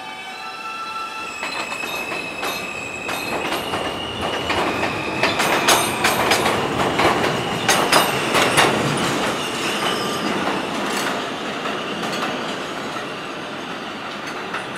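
R160B New York subway train pulling out of an elevated station. Its propulsion whines in steady tones that step up in pitch as it speeds up, then its wheels clatter over the rail joints, loudest about six to nine seconds in, before the sound fades as it leaves.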